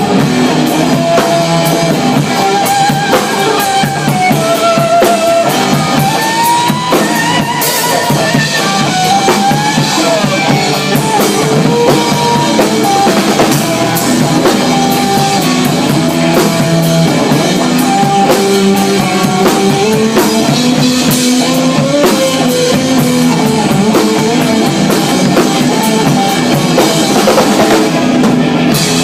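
Rock band playing live: a drum kit keeps up steady, busy hits and cymbal wash while a lead melody line wavers and bends over it, backed by bass and guitar.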